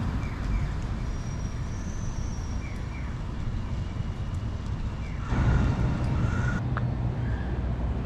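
Steady low outdoor rumble, louder for a stretch about five seconds in, with a few faint short high chirps.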